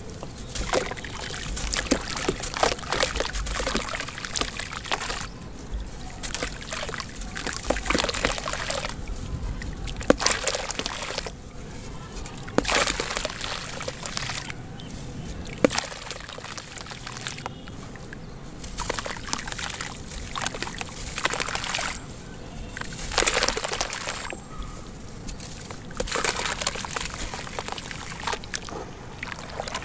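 A dry sandy clay block being dunked, squeezed and crumbled by hand in a tub of water: water sloshing, pouring and trickling in uneven bursts, with small crisp crackles as the block breaks apart and dissolves.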